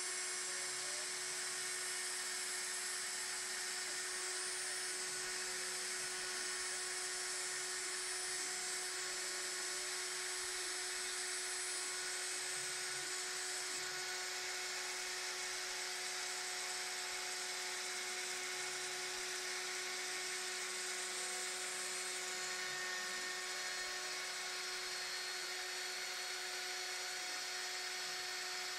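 Proxxon spindle on a home-built gantry CNC router, spinning at high speed while its bit mills through a wooden disc: a steady whine over the noise of the cutting.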